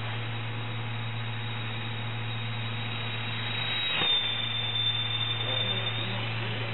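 High, steady whine of a small RC autogyro's electric motor and propeller in flight. About four seconds in, as it passes close by, the whine gets louder and drops slightly in pitch, over a steady low hum.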